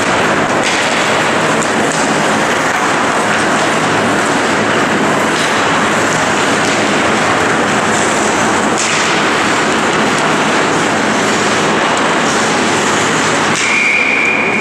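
Steady, loud ice-rink noise from a hockey game in play: skates and sticks on the ice with arena background. About a second before the end, a referee's whistle blows one held note, stopping play.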